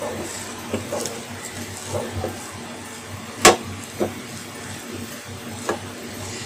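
A wooden spatula scraping and knocking against a non-stick frying pan as boiled noodles are stirred, over a steady hiss. The loudest knock comes about three and a half seconds in.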